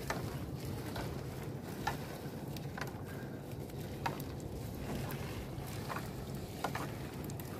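Short, sharp splashes and knocks, scattered roughly once a second, over a steady low rumble of water and wind. It is the sound of a sinking fishing net being hauled into a small boat, water splashing and dripping off it.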